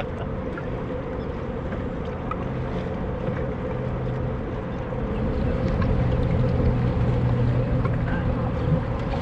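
Steady low drone of a motorboat engine over open water, with wind and choppy water noise; the drone grows louder about halfway through.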